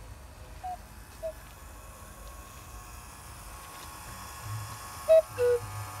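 Mechanical cuckoo calls from small pitched whistle mechanisms. A faint two-note "cuck-oo" sounds about a second in. Near the end a louder one falls from a higher note to a lower, held second note, over a faint steady hum.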